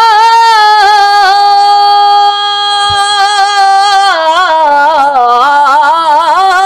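A man singing a naat unaccompanied in a high voice, holding one long note for a couple of seconds, then turning it into a wavering, ornamented run.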